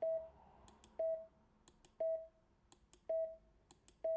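Morse code tone sounding the letter T: a single dah beep repeated five times, about one a second, with faint clicks between the beeps.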